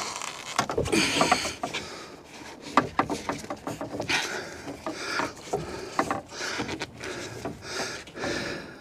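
Foam-insulated copper refrigerant lineset being pushed and bent by hand against wooden boards: irregular rubbing and scraping with many small knocks and clicks.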